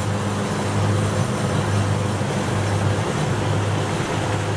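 Kubota DC60 rice combine harvester's diesel engine running steadily as the machine drives along: an even low drone with a faint steady higher whine over it.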